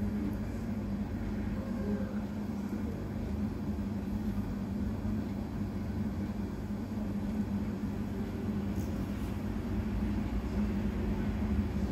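Steady low rumble with a constant hum, played through a television's speaker.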